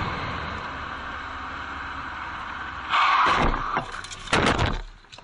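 Steady wind and road noise of a rider on the move, then about three seconds in a loud crash, with a second loud crash about a second and a half later, as the rider is thrown and hits the road.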